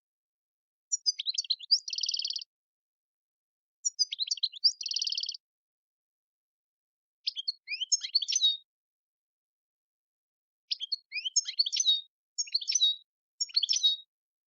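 European goldfinch singing in short phrases of quick, high twittering notes, the first two phrases ending in a buzzy trill, with silent gaps between about six phrases.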